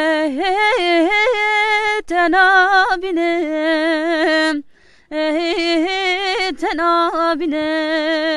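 A single voice singing a long, richly ornamented melody without words, holding sustained notes with quick turns and trills. It breaks off briefly about two seconds in and pauses for half a second near five seconds.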